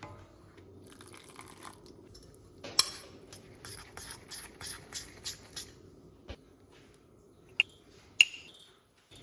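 Kitchen utensils and dishes clinking: one sharp clink, then a run of short strokes at about three a second, then two more sharp, ringing clinks near the end.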